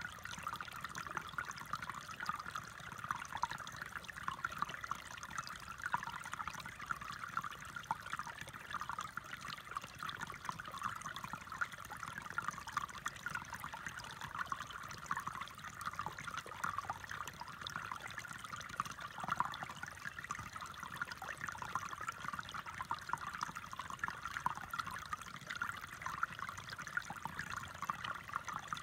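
Shallow stream trickling steadily over rocks and stones.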